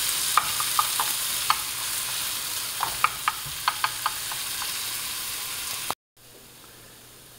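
Chopped onions and minced garlic sizzling in olive oil in a frying pan, with a wooden spoon stirring and clicking against the pan. About six seconds in the sound cuts off, and a much fainter steady hiss follows.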